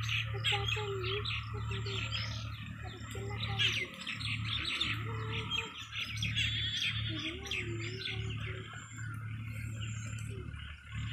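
A chorus of small birds chirping: many rapid, overlapping chirps and tweets, with a low steady hum underneath.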